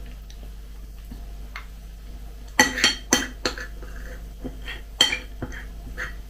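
Metal spoon clinking against a ceramic bowl while scooping cereal flakes with kefir. A quick run of sharp clinks starts about two and a half seconds in, with a few more single clinks later.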